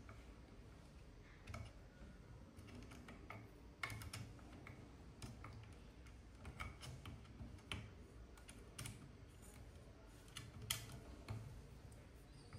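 Faint, irregular small clicks and taps of hands fitting a small screw and hex key into a 3D-printed plastic bearing holder on the printer's metal frame, with the sharpest tick a little before the end.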